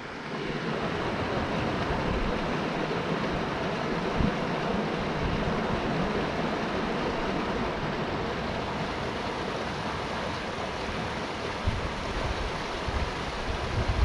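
Pedernales River water rushing steadily over limestone rocks and spilling into a pool, with light wind rumbling on the microphone now and then.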